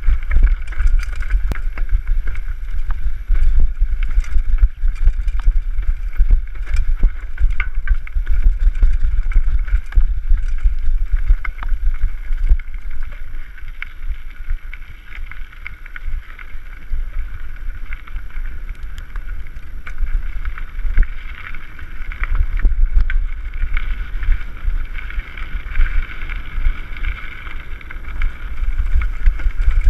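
Wind buffeting the microphone of a camera on a mountain bike riding over a rough dirt and gravel trail, with the bike rattling and clicking over the bumps and a steady hiss.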